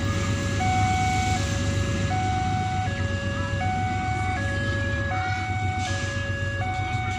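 Railway level-crossing warning alarm sounding an electronic two-tone signal, switching between a higher and a lower tone about every three-quarters of a second, as a diesel locomotive approaches. A steady low rumble of the locomotive's engine runs underneath.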